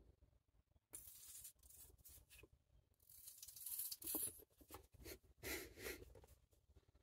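A nearly empty Titebond wood-glue bottle being squeezed, sputtering and hissing air out of its nozzle in several short bursts as glue is spread on a small wooden brace.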